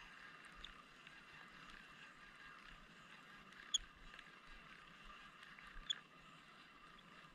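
Near silence: a faint steady hiss with two sharp, brief high clicks, about four and six seconds in.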